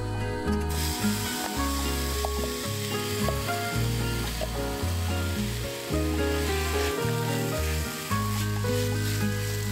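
Chopped onion sizzling in hot olive oil, starting about a second in, and stirred with a spatula near the end. Background music with strong bass notes plays over it.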